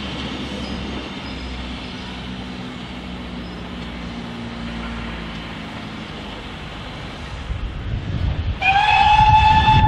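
A steam locomotive's whistle sounds about 8.5 seconds in: one long, clear call that rises slightly in pitch as it opens and then holds steady, over a low rumble. Before it there is only a steady, quiet background.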